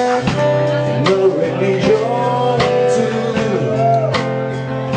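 A live band playing blues-rock: strummed steel-string acoustic guitar over a drum kit keeping a steady beat, with a lead melody that bends and slides in pitch.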